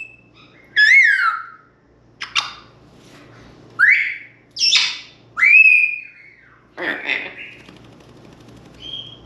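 African grey parrot whistling: a falling whistle about a second in, a rising whistle near four seconds, a longer, nearly level whistle near six seconds and a short high note near the end, with a few harsher, rougher calls in between.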